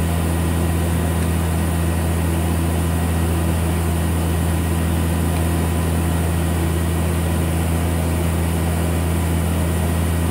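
Spindle of a Hurco TM6 CNC turning center running at a constant 5500 RPM, a steady low hum.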